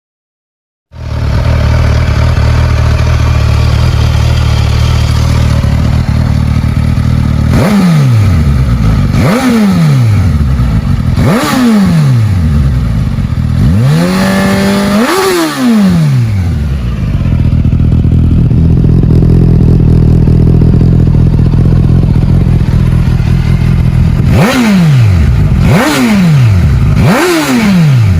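Suzuki Katana's 999 cc inline-four motorcycle engine idling through its exhaust and being blipped repeatedly: three quick throttle blips, then one longer rev held high for a couple of seconds, then idle again, then three more quick blips, each revving up and dropping straight back to idle.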